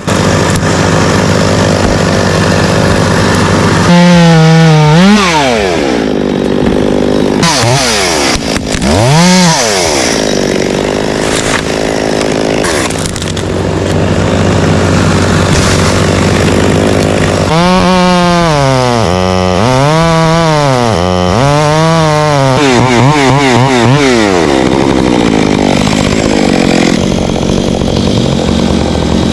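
Chainsaw running and cutting branches, its engine speed swinging up and down several times, with a run of about six quick rev-ups and drop-backs roughly once a second in the middle.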